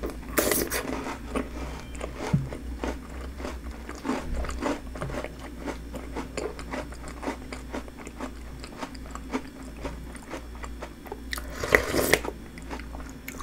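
Close-miked chewing and crunching of crisp snack pieces in a milky shaved-ice dessert, a steady run of small crisp crunches with a louder burst of mouth noise near the start and again near the end as another spoonful goes in.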